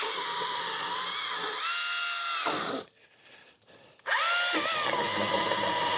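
Battery-powered pole saw's electric motor and chain running in two bursts: a steady whine that dips in pitch as the chain bites into a holly branch, stops a little before the halfway point, and starts again about a second later.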